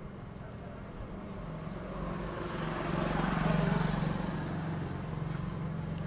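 A motor vehicle's engine passing nearby, a steady low hum that swells to its loudest about three and a half seconds in and then eases off.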